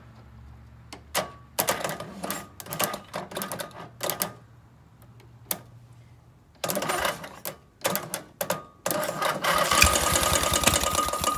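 Screwdriver bridged across the starter solenoid's terminals, snapping and crackling with sparks in a string of short bursts. In the last two and a half seconds a longer, louder crackling stretch comes as the starter cranks the Briggs & Stratton 18 hp opposed-twin engine, which almost catches but doesn't start.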